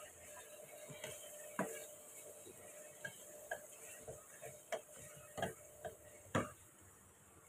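Wooden spatula stirring chicken pieces in a karahi, with soft irregular knocks and scrapes against the pan over a faint sizzle of oil.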